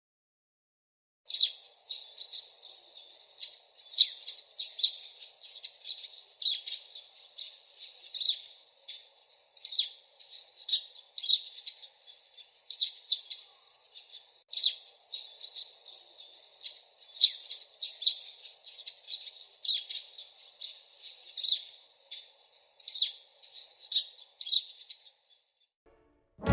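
Birds chirping: short high chirps repeating irregularly, one or two a second, starting about a second in and stopping shortly before the end.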